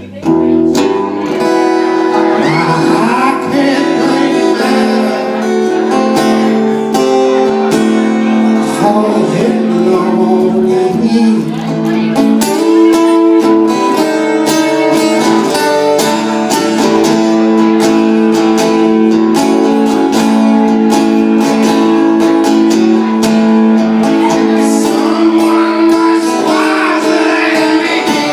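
Live acoustic guitar music in a folk-blues style: steady strumming with long held melody notes over it.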